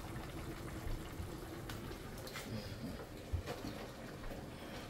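Pot of pork quietly simmering on the stove, with a few light clicks and taps.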